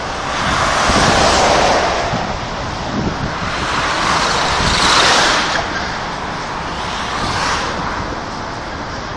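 Rushing noise of wind and road traffic on a small phone microphone, swelling loudly three times.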